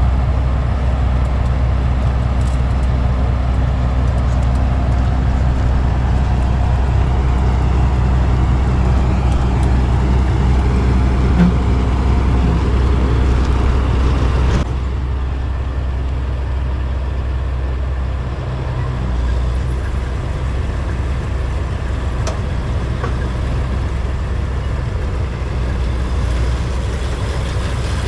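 New Holland TX34 combine harvester running steadily under load while harvesting corn, a deep engine drone with machinery noise. The sound drops slightly and changes abruptly about halfway through.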